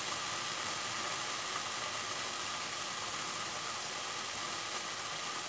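Curry sauce with raw chicken sizzling steadily in an aluminium frying pan over a gas flame turned down low.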